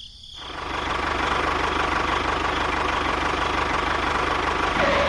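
Engine running steadily with a fast, even knocking beat, building up over about the first second.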